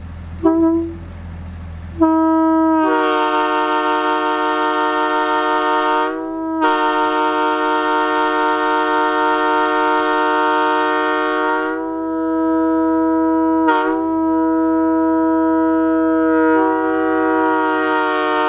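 Nathan M3H three-chime locomotive air horn: a short toot, then long blasts sounding a steady multi-tone chord. The chord breaks briefly about six and fourteen seconds in, sagging slightly in pitch at each break.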